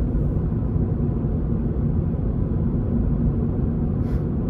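Steady low rumble of a Toyota GR86's engine and road noise heard inside the cabin while cruising at about 45 mph, with a brief faint tick about four seconds in.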